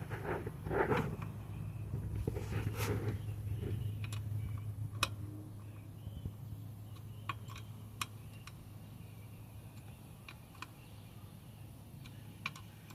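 A wrench working a nut on a pit bike's rear wheel: handling and scraping in the first few seconds, then scattered single sharp metallic clicks as the wrench is refitted and turned. A steady low hum runs underneath.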